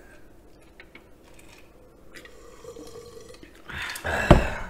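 Quiet sips and swallows of beer from an aluminium can. Near the end comes a louder rustle with one sharp knock, the loudest sound.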